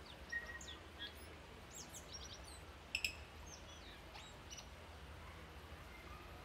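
A tui singing: a run of quick, high whistled notes that slide up and down, with two sharp clicks about three seconds in. The song thins out to a few faint notes after about four and a half seconds.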